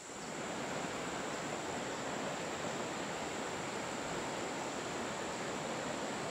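Fast mountain river running over rocks in white-water rapids: a steady rush of water that fades in over the first second.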